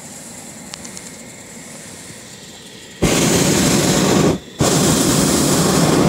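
Hot-air balloon's propane burner firing: a loud, steady roar that starts suddenly about three seconds in, cuts out for a moment, then fires again for about another second and a half.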